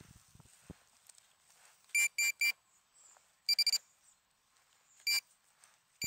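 Metal-detecting pinpointer beeping in short high-pitched bursts as its probe is worked into the soil of a dig hole, signalling a metal target close by: three beeps about two seconds in, a quick run of beeps around the middle, then single beeps near the end. Faint scrapes of the probe in the soil come in the first second.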